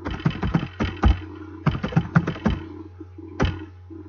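Computer keyboard typing: two quick runs of keystrokes in the first two and a half seconds, then a single key press about three and a half seconds in, over a steady low electrical hum.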